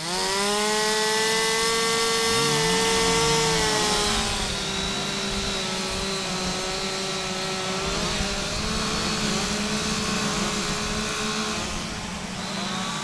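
Several two-stroke chainsaws running at high revs at once, their pitches wavering as they cut. The loudest one eases back about four seconds in.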